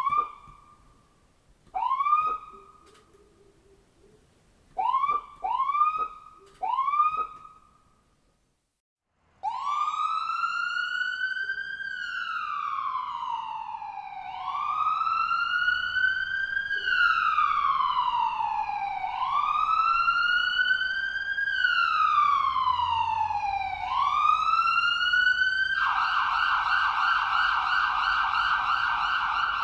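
Electronic ambulance siren. First it gives a handful of short rising whoops. After a brief gap it runs a slow wail that sweeps up and down every few seconds, and it switches to a fast yelp near the end.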